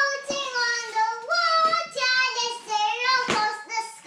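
A young girl singing wordlessly in a high voice, holding and sliding between notes. A sharp knock sounds about three seconds in.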